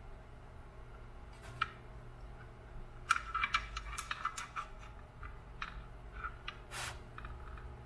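Small clicks and ticks of wires, soldering iron tip and metal switch lugs being handled while wires are moved onto the wah pedal's footswitch lugs. One click comes about a second and a half in, a quick run of them follows about three seconds in, and scattered ones continue, with a brief hiss near the end.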